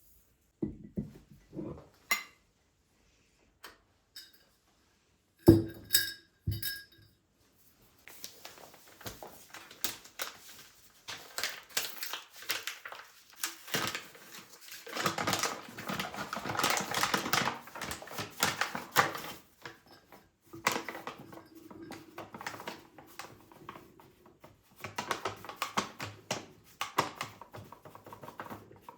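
Kitchen dishes and utensils being handled: a few separate sharp, ringing clinks early on, then a long stretch of busy scraping and rustling handling sounds.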